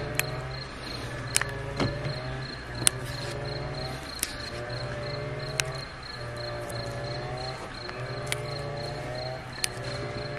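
Fresh green bean pods being snapped and stripped by hand, with about seven crisp snaps. Behind them a cricket chirps steadily, about three pulses a second.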